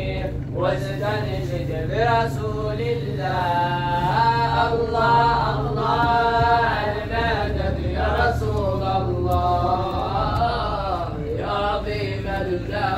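Islamic devotional chant in praise of the Prophet, sung in long, wavering held notes over a steady low hum.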